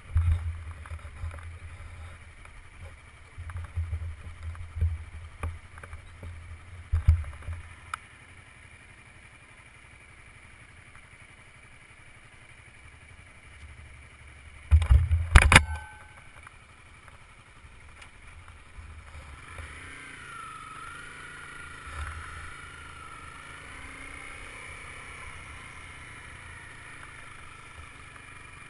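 Wind buffeting the microphone in gusts of low rumble for the first several seconds, then easing. A loud short knock about fifteen seconds in, and a steadier faint hiss with a wavering high whine in the last third.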